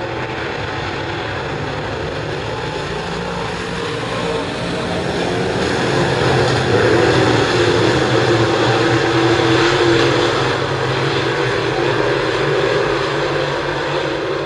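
Dirt late model race cars' V8 engines running hard around a clay oval, a loud blend of several engines. The sound swells about halfway through as cars pass close by, then eases off.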